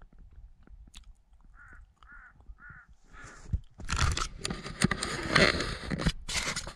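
A bird calls three times, short caws about half a second apart. Then comes a loud stretch of rough rushing noise with crackles for the last three seconds.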